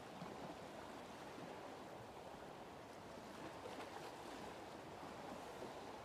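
Small sea waves washing steadily against shore rocks, a faint even wash of surf with no distinct breaks.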